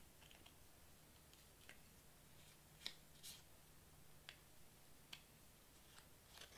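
Faint, scattered small clicks and scratches of a craft knife tip picking cut-out bits free from cardstock, about eight in all, the loudest about three seconds in, over a near-silent room.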